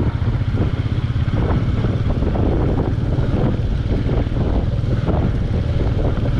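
Royal Enfield Meteor 350's single-cylinder engine running at a steady pace while the motorcycle is ridden, with wind noise on the microphone.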